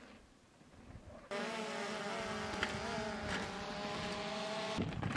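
Multirotor drone's motors and propellers buzzing steadily, several tones wavering slightly together, starting abruptly about a second in and cutting off just before the end.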